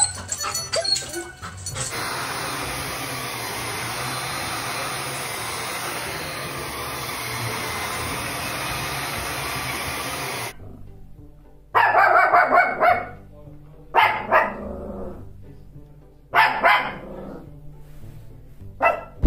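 Cordless stick vacuum cleaner running steadily for about eight seconds, then a small dog barking in three short bouts.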